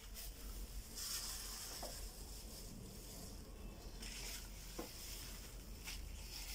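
Plastic bag and disposable plastic glove rustling and crinkling while marinated raw chicken pieces are packed into the bag by hand, in two stretches about a second in and again around four seconds, with faint wet squishing of the meat.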